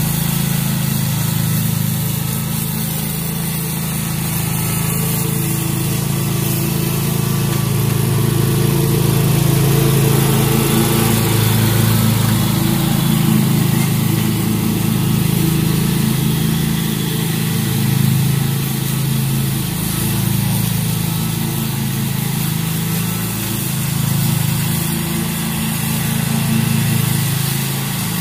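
Commercial walk-behind lawn mower's engine running steadily while mowing grass, swelling slightly as the mower passes close and easing as it moves away.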